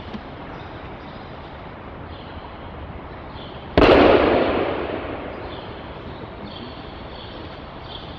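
An aikido partner's body hitting the mat in a breakfall: one sudden loud slap and thud about four seconds in, echoing briefly in a large hall.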